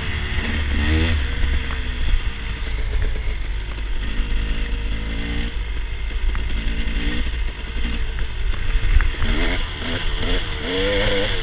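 Dirt bike engine heard from the bike itself, revving up and easing off several times as the rider picks up speed, with the revs climbing near the end. A heavy low wind rumble on the microphone runs under it.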